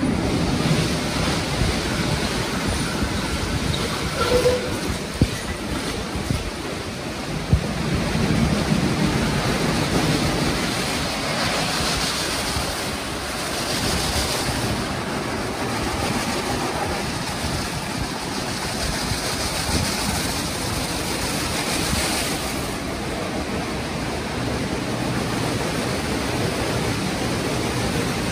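Istobal M'NEX 22 rollover car wash running a brush pass: its rotating brushes work over the car with water as the gantry travels, giving a steady rushing noise.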